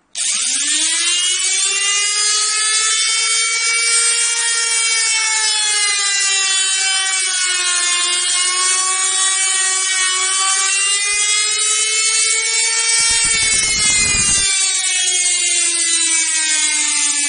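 Small high-speed electric power tool, a trim router, running and cutting a hinge recess into a wooden door slat. It starts abruptly with a steady high whine whose pitch sags a little as it bites into the wood, and there is a brief low rumble a few seconds before the end.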